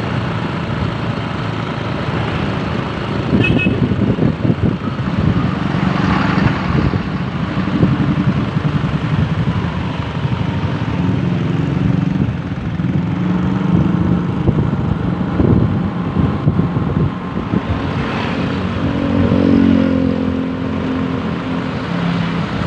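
Road traffic: motor vehicle engines running with steady road noise, and an engine note climbing briefly about nineteen seconds in.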